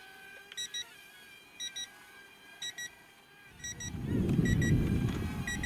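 RC transmitter low-battery warning: short double beeps about once a second, signalling low voltage in the controller's batteries. From about three and a half seconds in, a loud low rumble of wind on the microphone comes up under them.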